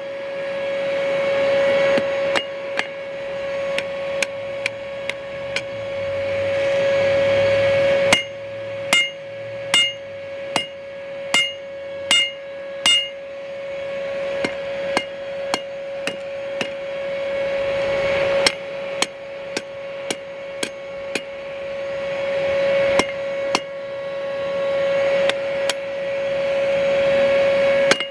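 Hand hammer striking red-hot round steel bar on an anvil, forging its end round. Spaced blows come throughout, with a run of about seven harder, ringing strikes in the middle, over a steady hum.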